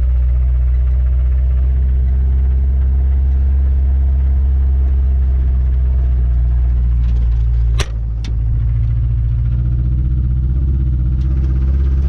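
Ford Ranger engine running steadily with the rod knock of a worn connecting-rod bearing. About eight seconds in, two sharp clunks come a fraction of a second apart, and then the engine note changes a little.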